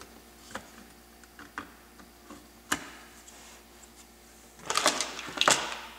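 Light clicks and taps of a plastic fuse box case and its circuit board being handled and pressed together, with one sharper click a little under three seconds in and a short burst of rattling clicks near the end.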